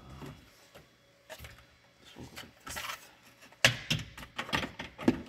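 Hard plastic interior car trim being handled and fitted: a string of knocks and clacks, the loudest a sharp clack about two-thirds of the way through, followed by several quicker ones.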